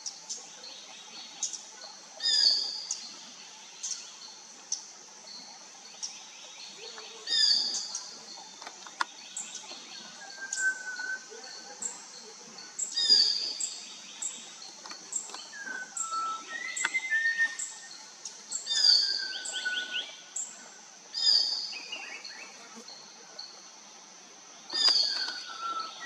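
Malabar whistling thrush calling: six loud bursts of high notes, several with falling whistles, every three to six seconds, over a steady high hiss.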